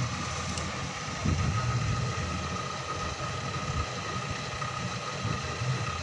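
Honda Odyssey engine idling steadily, with a thin steady whine above the low running note.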